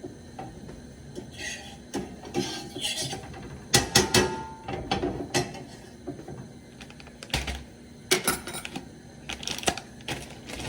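Kitchen utensils and dishes being handled: irregular clicks, clatter and a few sharp knocks, with brief scraping. The loudest knocks come about four seconds in and again about eight seconds in.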